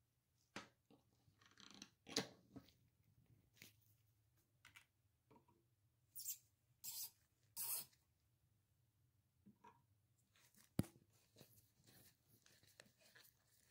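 Faint handling clicks and scrapes of a plastic toilet-seat hinge bolt being fitted and turned with a screwdriver, with three short scraping turns a little past the middle and one sharp click later on.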